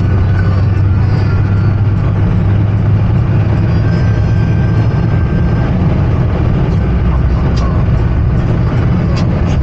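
BMW 5 Series F10 with the N20B20 engine driving, heard inside the cabin: a steady low drone of engine and road noise.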